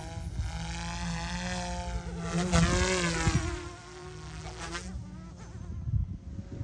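OMP M2 mini electric RC helicopter in flight, its motor and rotor buzzing with a pitch that rises and falls as the throttle changes. The sound gets quieter about two-thirds of the way through.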